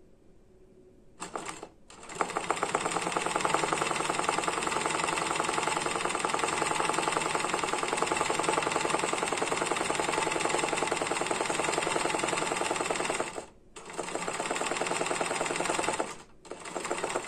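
Janome 813 sewing machine stitching in fast runs during hand-guided hoop embroidery. After a short start about a second in, it runs at a rapid, even needle rate for about eleven seconds, stops briefly, stitches for a few more seconds, and ends with a short burst.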